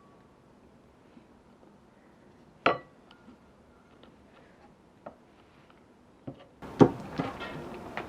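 A utensil clinking against a glass mixing bowl. One sharp, ringing clink comes about two and a half seconds in, followed by a few light taps. Near the end a busier run of clatter and scraping starts, with the loudest knock.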